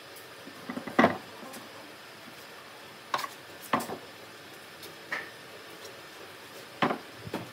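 Solid wooden furniture parts knocking and bumping against each other and the wooden workbench as they are handled and set down. There are about six sharp knocks spread out, the loudest about a second in.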